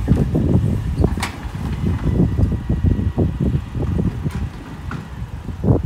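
Refuse lorry's engine running during bin collection, with wind buffeting the microphone. A few sharp knocks, the loudest near the end.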